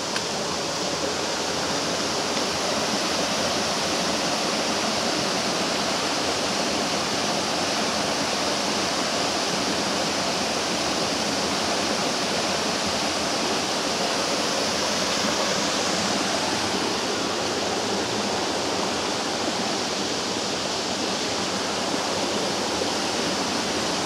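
Steady, even rush of falling water from the small La Bocaina waterfall and its rocky mountain stream.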